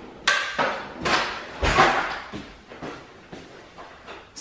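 Kitchen drawer being rummaged in and pushed shut: several knocks and clatters, the loudest a thud just under two seconds in, then fainter handling sounds.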